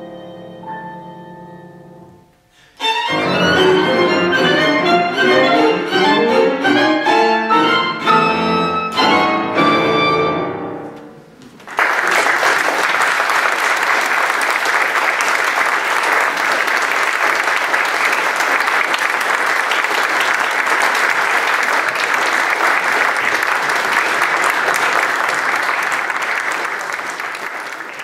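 The last bars of a piece for clarinet, violin, cello and piano. A held chord fades away, then comes a loud, fast passage of sharply accented notes that stops abruptly. After a second's silence an audience applauds steadily, fading out at the end.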